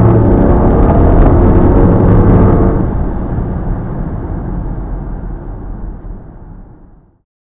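BMW 535d's 3.0-litre turbocharged inline-six diesel pulling hard under full throttle, its pitch slowly rising. About three seconds in the engine note drops away as the throttle is released, leaving road and wind noise that fades out to silence near the end.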